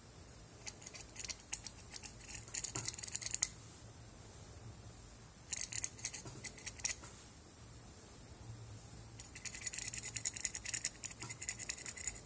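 A metal dental knife scraping the edge of a plaster dental model in three bursts of quick scraping strokes, the last the longest.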